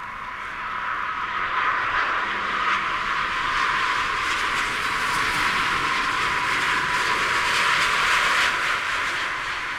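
A Boeing 787-9 Dreamliner's jet engines on final approach to land, a steady rushing roar that swells, peaks about eight seconds in, and fades as the aircraft passes.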